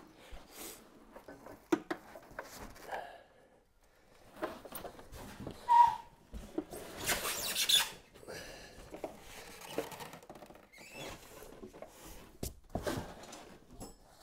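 Large cardboard box being tipped over and worked off a heavy planer-thicknesser: scuffing and scraping of cardboard with scattered knocks, a sharp knock about six seconds in and a rush of rustling cardboard just after it.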